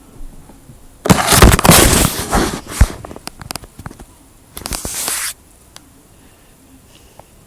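Loud rustling and crackling close to the microphone, in two bursts: a longer one about a second in, full of sharp crackles, and a shorter one a little past the middle.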